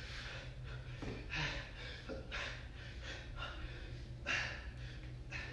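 A man breathing hard in short, forceful breaths, about one a second, in time with the repetitions of an exercise, over a steady low hum.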